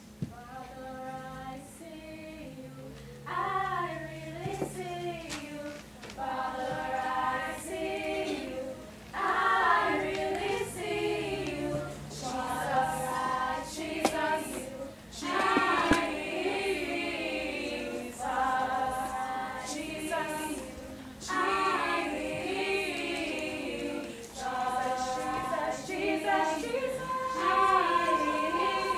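A chorus of young voices singing together, unaccompanied, in phrases a second or two long with brief breaks between them.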